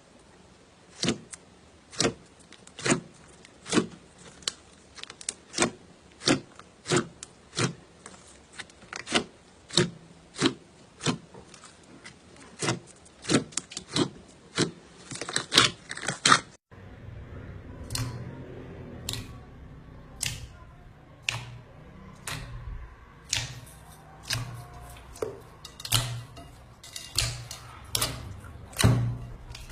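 Slime being squeezed and pressed by hand, giving sharp clicking pops roughly once or twice a second. After a cut about 17 seconds in, the pops come more irregularly over a low hum.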